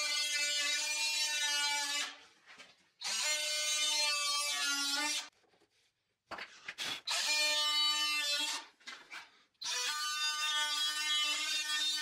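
DeWalt DCS356 brushless oscillating multi-tool cutting into a wooden tabletop. Its blade gives a steady high buzz in runs of about two seconds, stopping and starting again three times.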